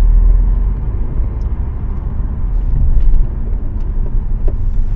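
Low road and tyre rumble inside a moving 2015 Audi A4, with a few faint clicks from the front suspension, whose control-arm rubber bushings are worn.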